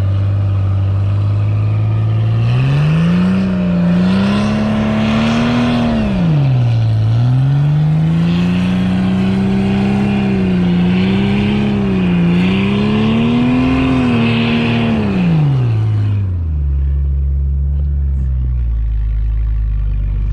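Jeep Cherokee's engine revving hard as its lugged mud tyres spin and churn through deep powder snow, stuck and trying to climb out. It rises from idle about two seconds in, dips once and climbs again, wavers at high revs, then drops back to idle near the end.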